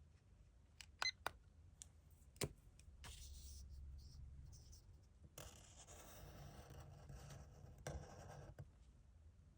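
A few sharp clicks, then faint scratching of a drawing tool stroking across paper, getting busier about halfway through.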